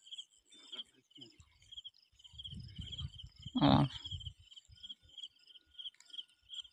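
Insects chirping in a steady train of short high pulses, a few a second. One short, louder pitched sound comes about three and a half seconds in.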